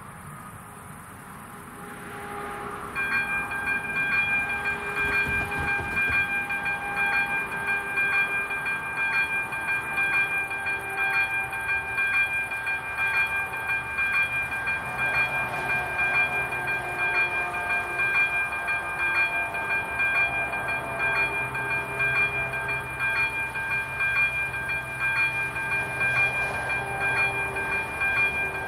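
Level-crossing electronic warning bell of an AŽD 97 crossing starting up about three seconds in, then ringing steadily with a two-pitch tone and a regular pulsing beat.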